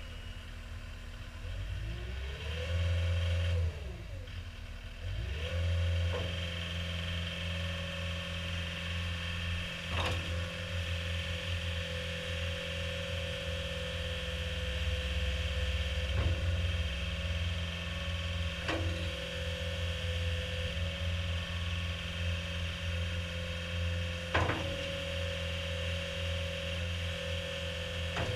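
Caterpillar 236D skid steer loader's diesel engine, revved up and down twice in the first few seconds, then held at high revs with a steady whine. A few sharp knocks sound along the way.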